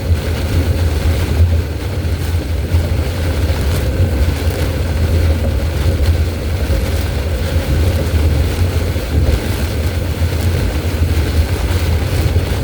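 Steady low rumble of a car driving at highway speed, heard from inside the cabin: road and engine noise, with wind and rain on the car in heavy weather.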